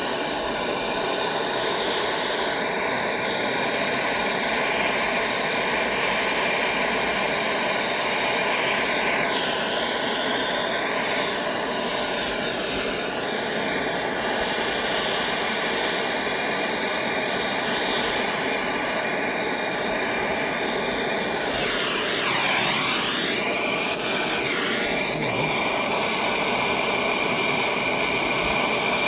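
Gas torch burning with a steady roar as its flame heats a crucible of molten sterling silver, the tone of the roar swooping down and back up briefly twice, about ten and twenty-two seconds in.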